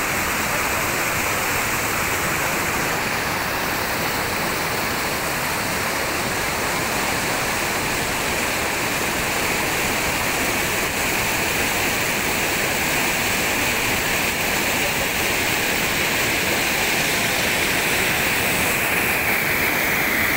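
Loud, steady rush of white water cascading over rock ledges in a small waterfall and rapids.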